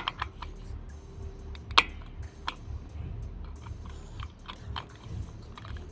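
Small irregular clicks and taps of metal parts being handled as a part is fitted into a freshly drilled hole on a bicycle, with one sharper click a little under two seconds in.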